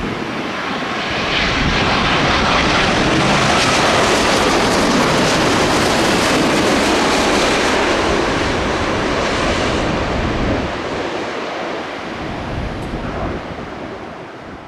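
Boeing 787-10 jet airliner passing close by on arrival: a steady engine roar swells about a second in, holds for several seconds, then fades away after about ten seconds.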